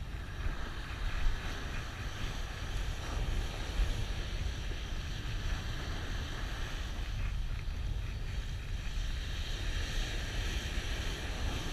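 Wind buffeting the microphone in a steady low rumble, over the wash of waves breaking on the shore.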